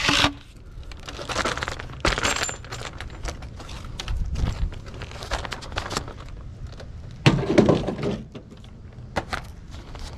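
Metal shafts of a multi-attachment yard tool being handled and set on a plastic-lined pickup tailgate: scattered knocks, clicks and short scrapes, the loudest just after the start and again about seven seconds in.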